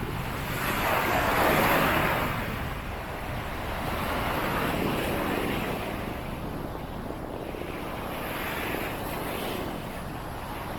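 Waves breaking and washing up the beach, with wind buffeting the microphone. The rush swells loudest about a second in, then again more softly around four to five seconds and near nine seconds.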